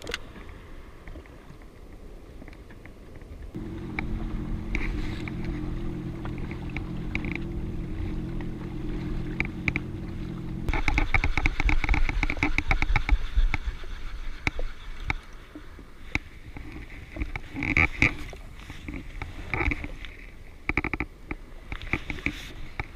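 Yamaha Waverunner jet ski engine running at low speed with a steady hum, growing louder with rushing water and a fast ticking rattle about eleven seconds in, then water splashing and knocking against the hull.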